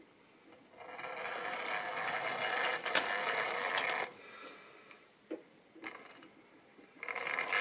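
Tri-ang model train running along the track: a steady small-motor whir starting about a second in and stopping about three seconds later. A few light clicks follow, then a short second whir near the end.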